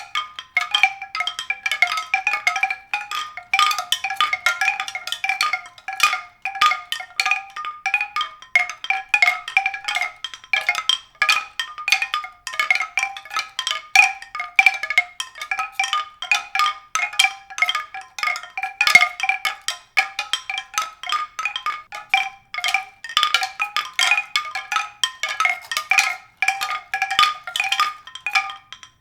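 Pitched percussion struck rapidly and irregularly, several strikes a second, the same few bright notes recurring without a pause.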